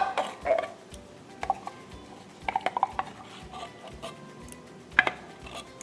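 A utensil clinking against a can and a casserole dish as condensed cream of chicken soup is scooped in: scattered light clinks, a quick run of them about two and a half seconds in and the loudest one about five seconds in.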